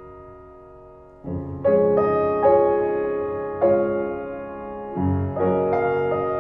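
Slow, gentle solo piano music: notes and chords that ring and fade away, with new notes coming in about a second in.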